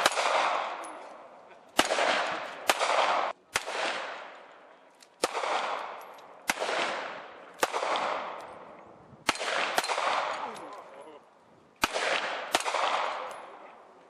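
Handgun shots, about ten, fired one at a time at uneven gaps of one to two seconds, each followed by a long echo dying away.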